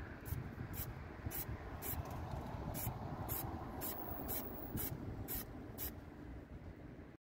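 Aerosol can of textured silver spray paint hissing in about a dozen short bursts, roughly two a second, with wind rumbling low on the microphone.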